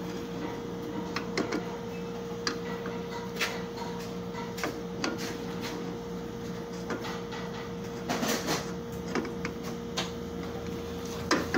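Corroded drill press quill being worked by hand: irregular metallic clicks and knocks, with a longer scraping patch about eight seconds in, over a steady hum.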